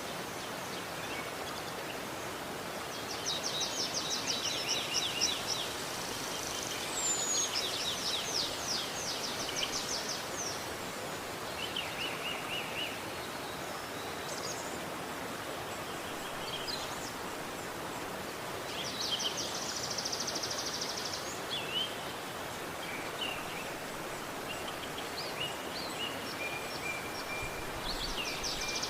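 River water flowing steadily, with songbirds calling over it in several bursts of fast, high trills and chirps.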